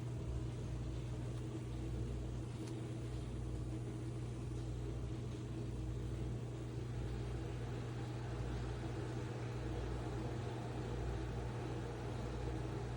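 Robot vacuum running, a steady motor hum with a constant low drone and a hiss of airflow.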